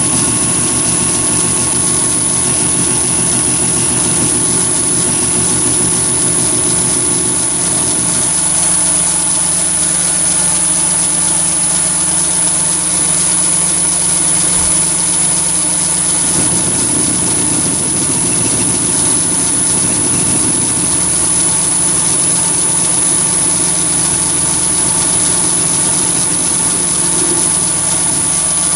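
Chinese mini lathe running steadily at about 1220 rpm, the motor and drive humming under a constant high whine, while a turning tool takes the hexagon off a part held in the three-jaw chuck. The low running note changes about eight seconds in and again around sixteen seconds in.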